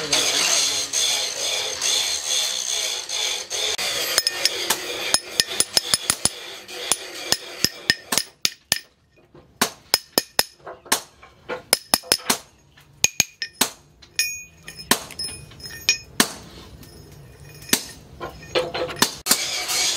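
A hammer striking steel on an anvil: sharp, ringing metallic clinks, irregular and sometimes several a second, in runs with short pauses. They start after a few seconds of steady hiss.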